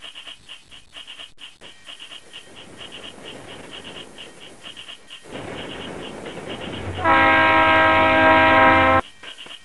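Steam train whistle blowing one loud, steady blast of about two seconds that cuts off suddenly, after a hiss of steam builds from about halfway through.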